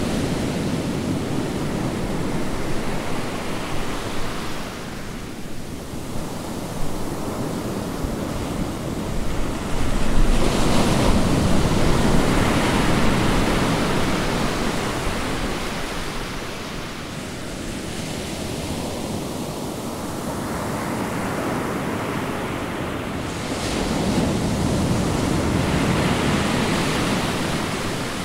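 Rushing noise of wind and waves, swelling louder about ten seconds in and again near the end.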